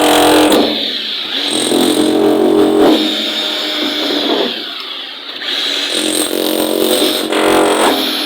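Jackhammer running, its hammering swelling and easing several times.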